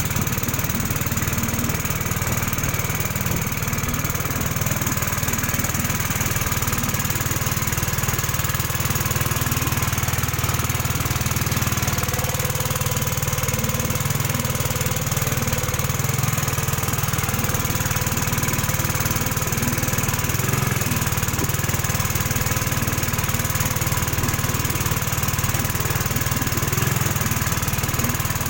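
Pump boat's engine running steadily under way, an even drone that does not change.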